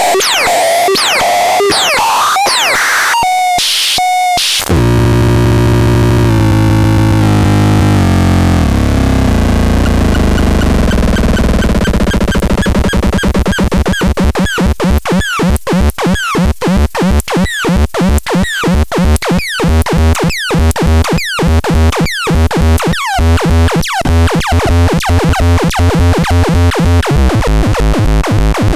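Harsh electronic synthesizer noise. It opens with repeated falling sweeps, switches about five seconds in to stepped low droning tones, and then turns into a run of pulses that fall in pitch and come faster and faster.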